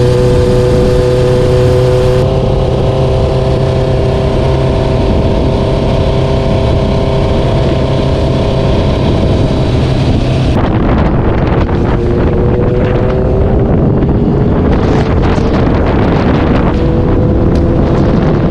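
Honda CBR1000RR-R's inline-four engine running at steady revs under way, with wind noise on the microphone. In the second half the engine note climbs slowly as the bike gains speed.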